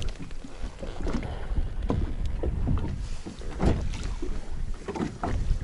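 Small waves lapping and slapping irregularly against the side of an inflatable boat, over a steady low rumble of wind on the microphone.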